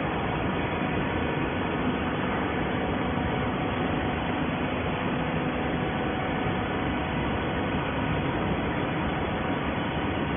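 Steady running noise of an industrial horizontal baler plant and its feed conveyor: a constant mechanical hum and whir with a few faint steady tones, unchanging throughout.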